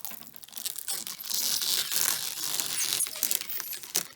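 Protective plastic film being peeled off, a crackling, tearing hiss with a few crinkles at first that swells about a second in and fades near the end.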